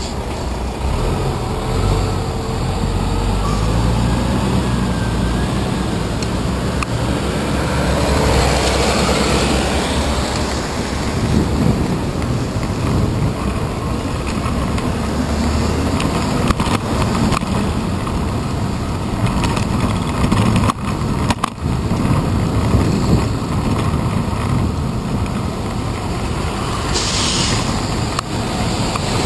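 Dense city street traffic heard from a bicycle's handlebar, with buses and trucks running close alongside as a steady low rumble mixed with road noise. There are scattered sharp knocks, and a short hiss comes near the end.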